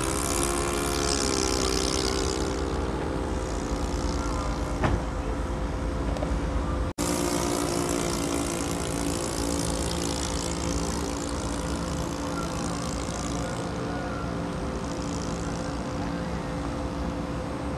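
ASP 91AR model glow engine of an RC aerobatic plane running in flight with a steady propeller drone; its pitch bends up and down in the first couple of seconds as the plane passes and manoeuvres. There is a single sharp click just before five seconds, and the sound drops out briefly at about seven seconds.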